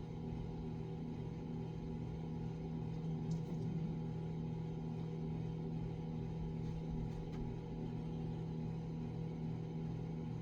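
Self-service fuel dispenser pumping gasoline: a steady motor hum with a regular pulsing beat under it. Two faint clicks come about three and seven seconds in.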